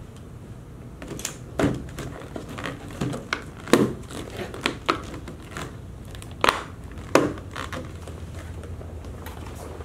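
Thin clear plastic clamshell containers being handled and packed with cut cilantro microgreens: irregular plastic crinkles and sharp clicks, a few louder snaps, over a steady low hum.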